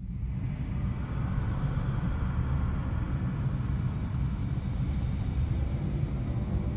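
Steady low rumble of an aircraft in flight, starting suddenly out of silence.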